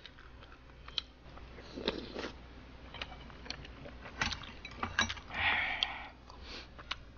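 Eating sounds: quiet chewing with scattered clinks of a metal spoon and chopsticks against a soup bowl and side dish, the sharpest clicks about four to five seconds in as the spoon is set down and the chopsticks pick up kimchi, then a short rustle.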